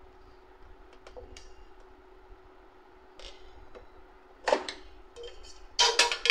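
Scattered small clicks and knocks of a screwdriver working on the plastic housing of an Epson ink-tank printer, with a louder knock about four and a half seconds in and a quick cluster of clicks near the end, over a faint steady hum.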